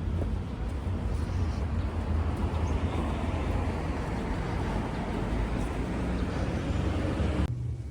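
Steady low rumble of vehicle traffic with an even hiss, cutting off suddenly about seven and a half seconds in.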